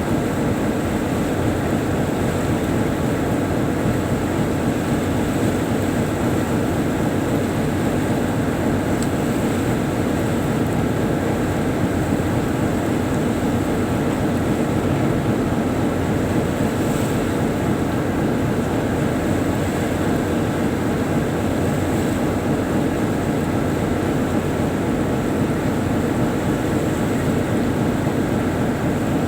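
Tugboat engine running steadily while under way, a loud, even drone heard on board.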